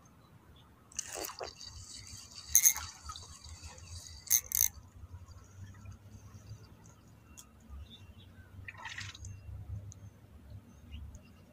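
Water splashing and dripping as a hooked fish is pulled through the surface and lifted out of the canal, with three sharp slaps in the first half and another short splash near the end.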